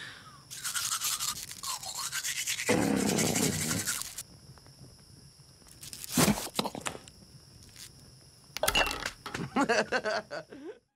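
Cartoon sound effects of a snowman character eating: a fast, scratchy munching for about three and a half seconds with a wordless hum, a sharp click about six seconds in, and wordless mumbling near the end.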